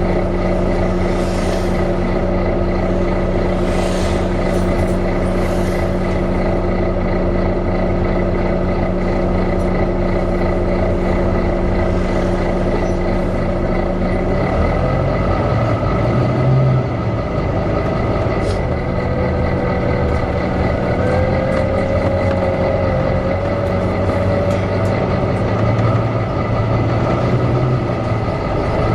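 Volvo B9TL double-decker bus running, with the engine cooling fan's steady hoover-like whine and hum. About halfway through, the steady hum shifts and a wavering, higher whine comes in for several seconds.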